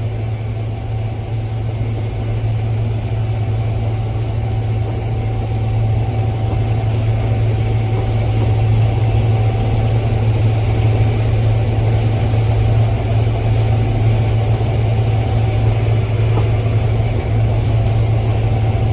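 Combine harvester running while harvesting corn: a deep, steady drone with a faint whine over it, heard from inside the cab, growing a little louder about six seconds in.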